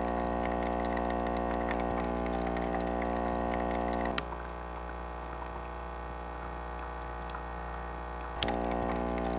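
Nespresso coffee machine's pump humming steadily as it brews water. About four seconds in, a click comes and the hum drops noticeably as the active noise cancellation switches on; about four seconds later, another click comes and the full hum returns as it is switched off.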